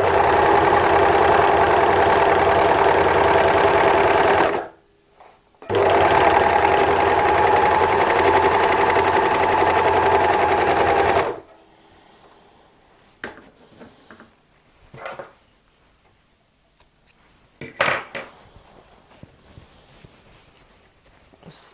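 W6 N454D overlock machine running, sewing a gathering seam on single-layer cotton. It runs steadily for about four and a half seconds, stops for about a second, then runs again for about five and a half seconds and stops. A few faint handling clicks follow.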